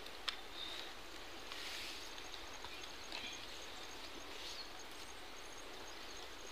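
Soft, intermittent rustling of a thin plastic sheet being handled and unfolded, over quiet outdoor background with a faint, high, evenly pulsing sound underneath.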